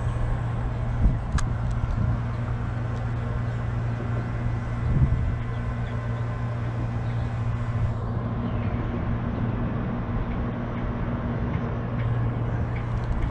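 Steady drone of traffic on the highway bridge overhead, a low hum with rumble beneath it. A few short knocks stand out, about a second in and again around five seconds.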